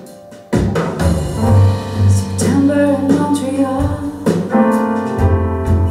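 Recorded song with piano, bass and a woman singing, played back over a hi-fi system's tower loudspeakers; the bass and fuller accompaniment come in about half a second in.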